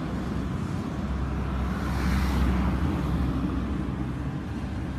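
Bulleid Merchant Navy class steam locomotive 35018 British India Line approaching with a train, heard as a steady low rumble of exhaust and running that swells to its loudest about halfway through.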